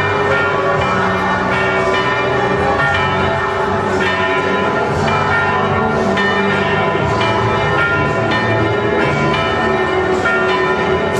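Church bells ringing in a continuous peal from the bell tower: several bells at different pitches, strikes coming every fraction of a second and overlapping into a steady, loud clangour.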